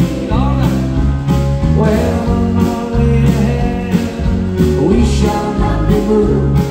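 Live band music in a country-gospel style with a steady drum beat, and a man's singing voice at times.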